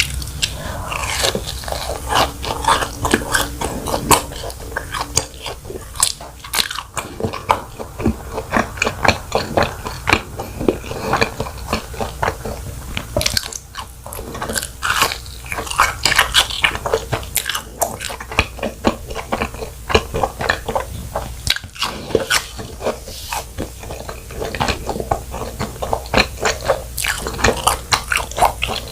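Close-miked eating of fried cheese balls: repeated bites into the crisp crust and steady crunchy chewing.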